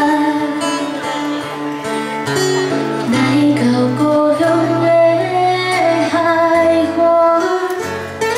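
Live band playing an instrumental break in a Taiwanese Hokkien ballad: plucked acoustic guitar under a long-held melody line, over a bass line that steps down slowly.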